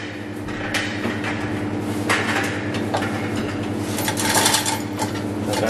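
Scattered metal clinks and knocks from the chain-hoist chains and hardware around a hoisted truck gearbox, over a steady low hum. The clearest knocks come about two seconds in and again around four seconds.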